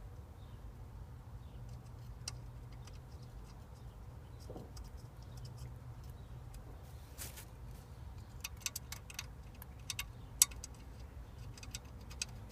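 Small parts and hand tools being handled while fitting a steering wheel's horn button assembly: scattered light clicks and metallic taps, coming thick and fast over a couple of seconds near the end, with a sharper click among them. A low steady hum runs underneath.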